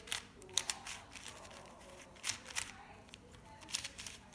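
Budget 4x4 speedcube being turned by hand into a checkerboard pattern: scattered plastic clicks and scrapes of layers turning, irregular and spaced out. The unlubricated cube feels very sandy to turn.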